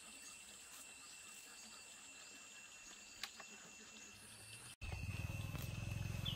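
Steady, high-pitched insect drone with a single sharp click about three seconds in. Near the end the sound breaks off for an instant and a louder low hum comes in under the insects.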